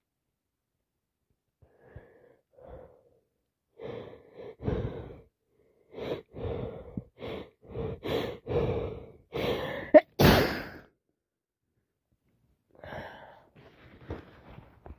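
A woman with a cold takes a series of quick gasping breaths that build up, then sneezes once loudly about ten seconds in. Softer sniffling follows near the end.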